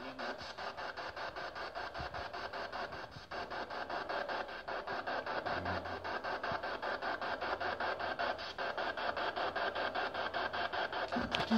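PSB7 spirit box scanning through radio frequencies: a steady, fast, even stutter of radio static chopped many times a second.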